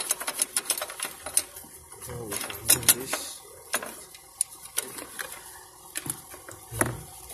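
Irregular clicking and rattling of plastic wiring-harness connectors and dashboard parts being handled and unplugged, densest at the start, with a heavier knock near the end.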